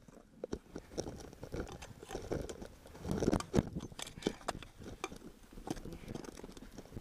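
Irregular crunching of snow as a climber's gloved hands and ice axe are driven into it, the crunches loudest about three seconds in.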